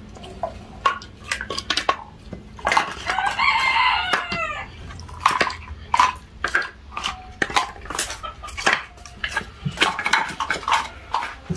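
Split firewood pieces knocking and clattering against each other as they are picked up and stacked into an armful. About three seconds in, a rooster crows once for about two seconds.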